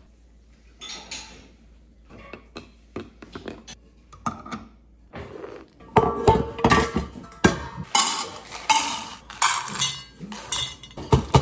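Stainless steel bowls clanking and scraping against each other and on a counter, with a dense rattle as something is tipped from a tub into them, starting about five seconds in. Before that, only a few light clinks of a mug and spoon.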